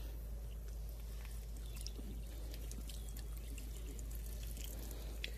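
Faint wet handling sounds with scattered small ticks from a freshly plucked, wet chicken carcass being turned in the hands, over a steady low rumble.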